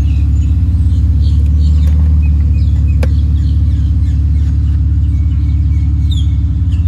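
Mercedes-Benz 300TE 3.4 AMG's 24-valve straight-six idling steadily, with birds chirping over it and a single click about three seconds in.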